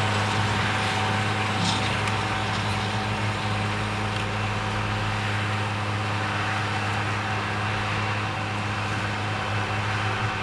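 Tractor engine running steadily under load, pulling a disc ridger through soil: an even, low-pitched drone with a hiss over it, growing slightly fainter as the tractor moves away.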